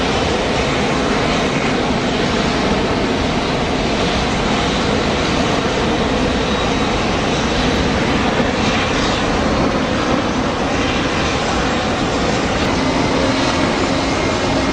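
McDonnell Douglas DC-10 trijet's jet engines, a loud, steady noise as the airliner rolls out along the runway after touchdown.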